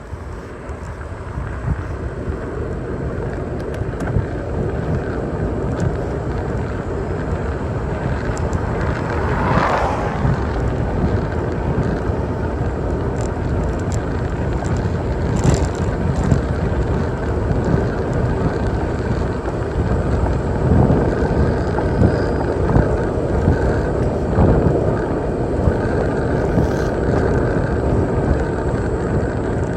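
Wind rushing over the microphone and bicycle tyres on a paved road as the bike rides along, a steady noise heavy in the low end. About ten seconds in a brief louder whoosh rises and falls.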